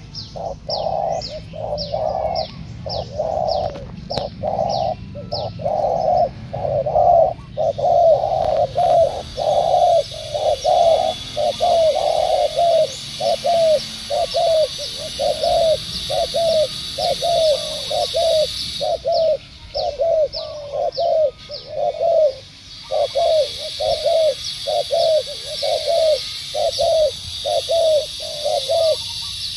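Spotted doves cooing in a contest, short low coos repeated quickly at about two to three a second with a couple of brief breaks. Higher chirps sound over the first third, and a steady high hiss runs behind in the middle and near the end.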